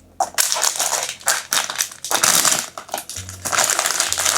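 Blind-box packaging being opened by hand: dense crinkling and rustling in quick, repeated bursts that start just after the beginning and stop near the end.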